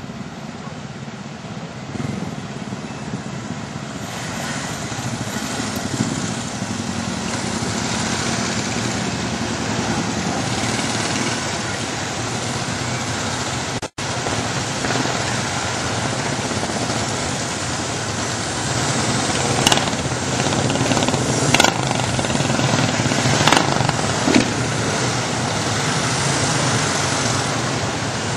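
A group of motorcycles riding past one after another, their engines running. A few short sharp pops come about two-thirds of the way through, and the sound drops out for an instant about halfway.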